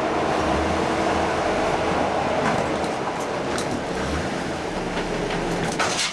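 Off-road 4x4's engine running steadily as the vehicle works over a trail obstacle, with a few sharp knocks in the second half.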